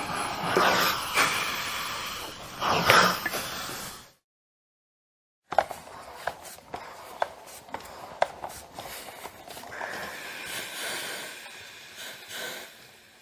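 Electric steam iron hissing steadily with a few stronger puffs of steam, cut off suddenly about four seconds in. After a second and a half of silence comes a quieter stretch of scattered sharp clicks and taps, with a softer steam hiss swelling up again in the last few seconds.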